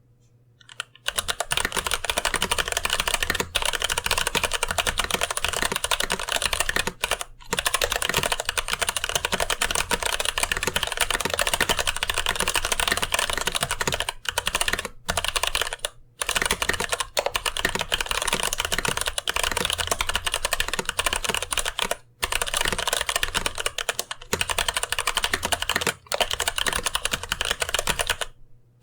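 Fast, continuous typing on a mechanical keyboard with light linear TTC Gold Pink switches in a brass plate and hot-swap PCB, with GMK keycaps. It starts about a second in, with a few short pauses between runs of keystrokes.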